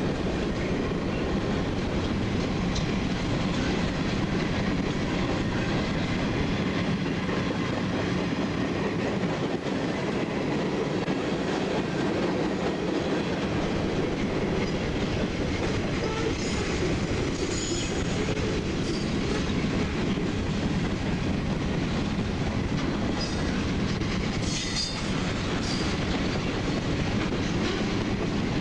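Freight train of boxcars and covered hoppers rolling past at close range, a steady rumble and clatter of steel wheels on the rails. Short high-pitched wheel squeals come in twice in the second half.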